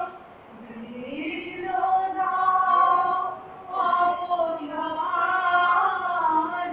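Female singing: a slow song with long held notes. There is a soft gap at the start, a rising note about a second in, and a short pause around three and a half seconds.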